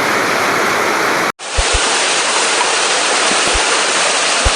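Rushing floodwater, a loud, steady roar of torrenting water through a flooded street. It cuts out for an instant about a second in and comes straight back, with a few low thumps.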